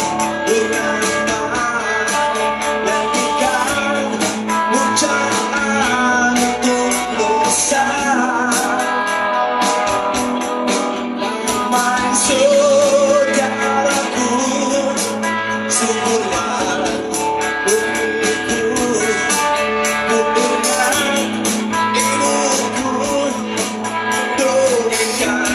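Rock song with electric guitar, drums and a male lead singer.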